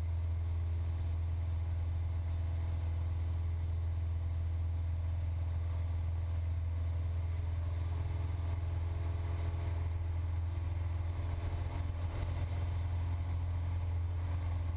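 Cessna 172's piston engine and propeller droning steadily in flight, heard from inside the cabin: a strong low hum with a stack of fixed tones above it, holding constant throughout.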